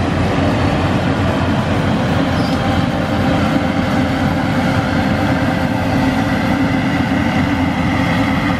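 Yanmar 850 rice combine harvester running steadily under load as it cuts and threshes rice: an even, unbroken machine drone with a faint held whine over it.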